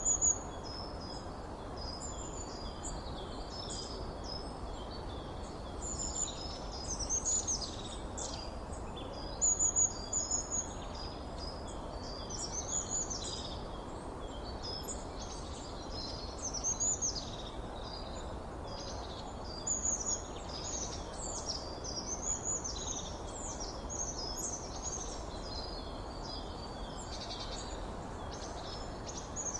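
Several birds calling and singing over one another, with short high chirps, trills and sweeping notes coming and going throughout. They sit over a steady low background hiss.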